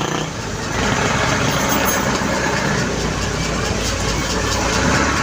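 A motor vehicle's engine idling steadily close by.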